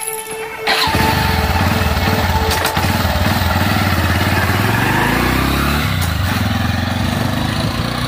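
Motorcycle engine starting up about a second in, then running as the bike pulls away, its pitch rising for a couple of seconds as it gathers speed before settling into a steady run.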